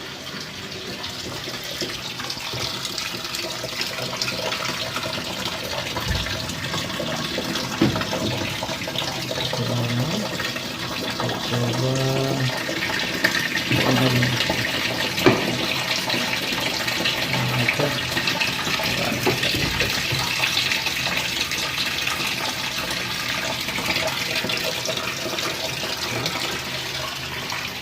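Water from a tap running steadily into a washing machine tub as it fills, to test whether the drain valve now holds.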